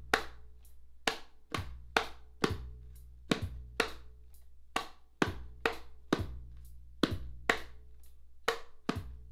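Hands tapping the wooden back of a ukulele in the island strum rhythm (down, down-up, up-down-up), a steady run of sharp wooden taps about two to three a second in uneven groups, played as percussion.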